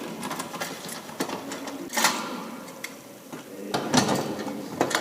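Ratchet with a 10mm socket clicking rapidly as a small engine's last shroud bolt is backed out, with a couple of louder knocks about two and four seconds in.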